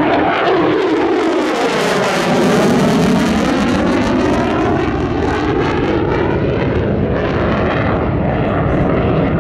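F-35A Lightning II's single Pratt & Whitney F135 jet engine running loud in afterburner as the fighter banks past. The roar sweeps and phases as the jet moves across the sky.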